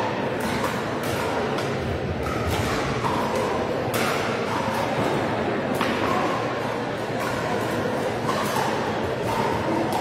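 Pickleball paddles striking plastic balls on several courts at once: irregular sharp pops, several a second, echoing in a large sports hall.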